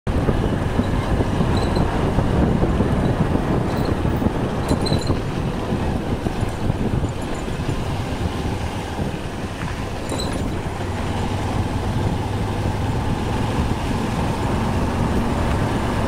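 Steady engine drone and road rumble of a vehicle driving along an unpaved dirt road, heard from on board, with the engine note climbing slightly near the end.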